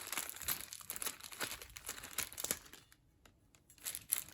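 Adhesive tape crinkling and crackling as it is pressed on and pulled off the antenna to lift sticky residue, with a short lull about three seconds in before the crackling resumes.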